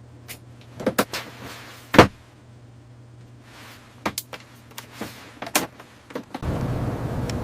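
Scattered sharp knocks and clicks over a steady low hum, the loudest knock about two seconds in and a cluster of lighter ones later. About six and a half seconds in, a louder, steady rumbling noise starts suddenly.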